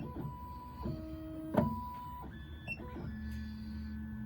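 Miracle A9 key cutting machine's motors whining in steady tones that jump from one pitch to another as the machine moves through an automatic calibration measurement, with one sharp click about a second and a half in.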